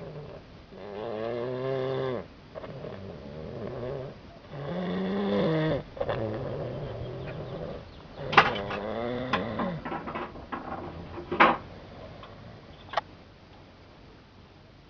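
A man snoring loudly in his sleep: long, wavering, pitched snores come about every three to four seconds. Several sharp snorts or clicks follow later, and the snoring fades out near the end.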